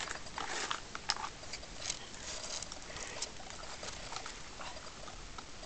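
Scattered light scuffs and rustles as rubber swim flippers are handled and feet shuffle on dry, stony ground, busiest in the first few seconds.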